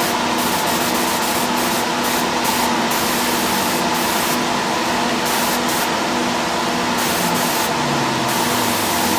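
Paint spray gun atomizing single-stage urethane paint: a steady hiss of compressed air and paint, with a steady hum underneath.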